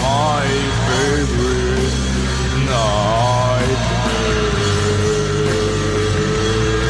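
Heavy rock band playing a passage without lyrics. A lead line bends up and down twice, then holds one long note from about four seconds in, over bass and drums.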